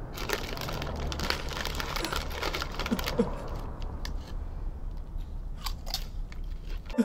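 Rustling and crunching handling noises with scattered sharp clicks over a steady low hum. The rustling is densest in the first three seconds or so and thins out after.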